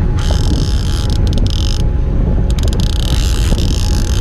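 Conventional game-fishing reel being cranked in under the load of a hooked fish, its gears and ratchet clicking rapidly in two long spells of winding, over a steady low rumble from the boat and wind.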